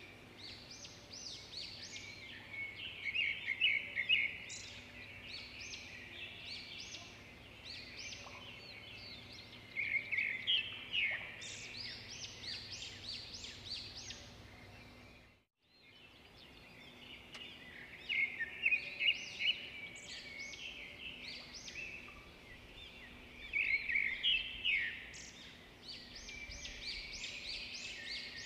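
Birds chirping and calling, many short high chirps in busy clusters. It cuts out for a moment about halfway through, then the same chorus starts again.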